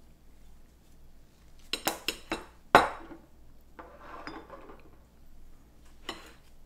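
Eating utensil clinking against a dish: a quick run of four or five knocks, the last and loudest about three seconds in, then a short rustle and one more clink near the end.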